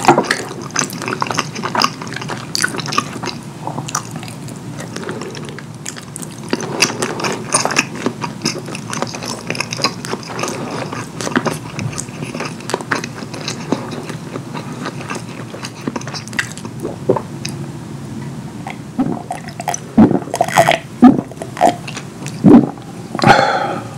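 Close-miked wet eating sounds: sticky chewing and mouth smacks in quick irregular clicks, with a few louder smacks near the end.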